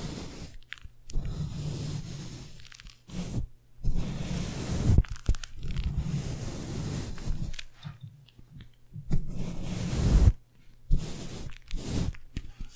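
Flat-top makeup brush bristles swept and scrubbed across a microphone's metal mesh grille, close to the capsule. It comes in a series of irregular scratchy sweeps with short pauses between them, each carrying a deep rumble.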